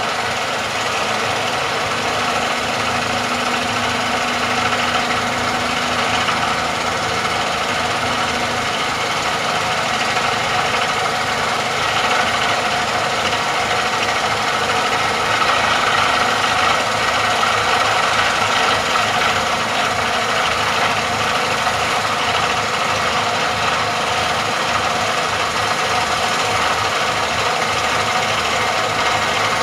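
Vibratory hammer clamped on a 1650 mm steel casing, running steadily as it vibrates the casing down into the ground. A steady hum comes in about two seconds in and stops about eight seconds in.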